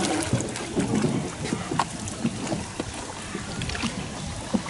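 Small wooden hand-rowed boat moving through water under the oar, with light water noise and scattered short sharp knocks.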